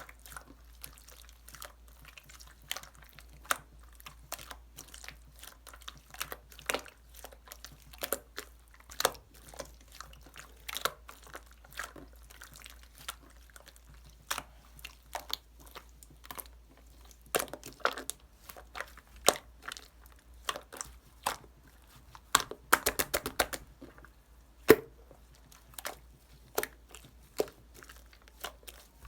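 Irregular crackling and crinkling clicks of a small object handled close to the microphone, with a quick rattling run of clicks about three quarters of the way through.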